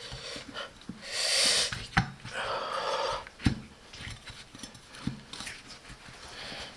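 A person breathing hard with effort, with two long heavy breaths, while a solid honeycomb rubber scooter tire is forced onto its wheel rim by hand. Two sharp knocks come about two and three and a half seconds in.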